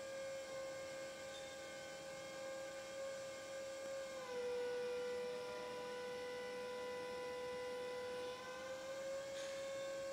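Electric hydraulic pump motor of a Raymond narrow-aisle swing-reach truck whining steadily as the forks are worked, dropping slightly in pitch about four seconds in and coming back up near the end.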